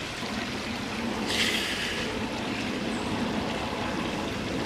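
A steady low rumble of a passing engine, loud enough to interrupt the talk, with a brief hiss about a second and a half in.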